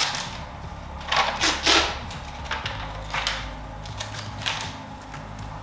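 Packing tape being peeled off a new ice maker in several short, noisy pulls, the loudest about a second in.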